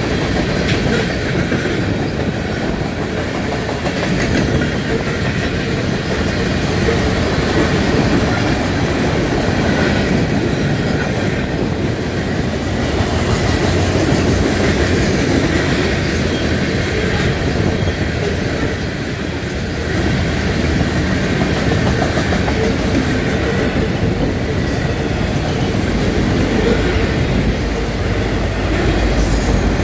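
Freight train passing close by: the steady rolling rumble and clatter of steel wheels on the rails as tank cars, covered hoppers and autorack cars go by.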